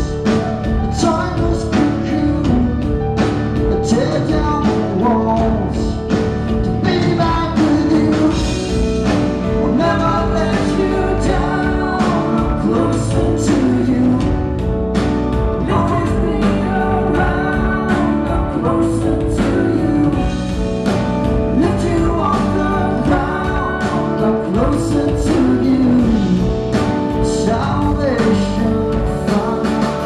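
Live rock band playing: drums, electric guitar, bass and keyboards, with a singer's voice over them, heard from the audience in a theatre.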